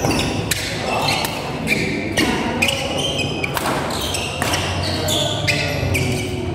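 Badminton doubles rally: rackets striking the shuttlecock in quick succession, about two strokes a second, with shoe squeaks on the court floor.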